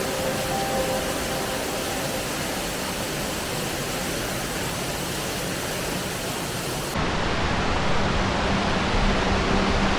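Rushing water of a gorge stream and its waterfalls: a steady, even rush. About seven seconds in it changes abruptly, becoming a little louder and duller.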